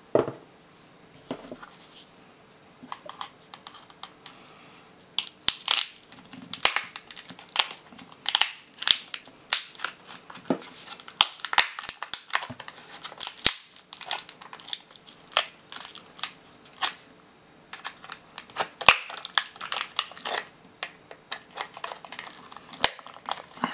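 Small screwdriver prying at the seam of a plastic laptop battery pack's case: a run of irregular sharp plastic clicks and cracks as the case is worked open. They are sparse at first and come thick and fast from about five seconds in.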